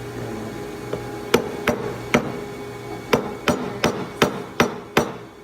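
Hammer tapping on metal at a lathe chuck, about nine sharp strikes: a few spaced apart, then a steady run of evenly timed taps.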